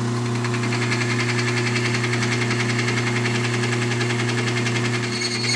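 A 30-micron diamond belt on a 1-inch belt sander grinds a carbide saw tooth over the steady hum of the sander's motor. A rapid, regular knocking runs through the grinding: the thick taped joint in the belt bumping past the tooth. A brief thin whine comes near the end.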